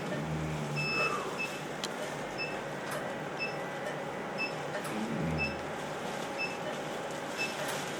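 Short electronic beeps from operating-room medical equipment, repeating roughly once a second at slightly uneven intervals, over a steady machine hum and faint murmured voices.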